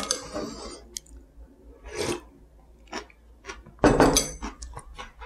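Metal chopsticks clicking against a ceramic bowl of cold soup with ice, with short bursts of eating noise between the clicks. The loudest burst, with several clicks, comes about four seconds in.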